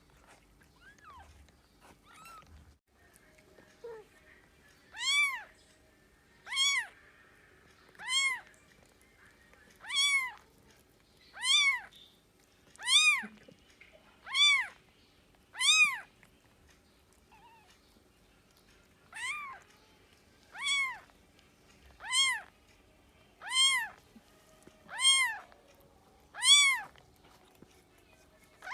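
A cat meowing over and over: short, high-pitched meows that rise and fall, about one every second and a half, with a brief pause midway.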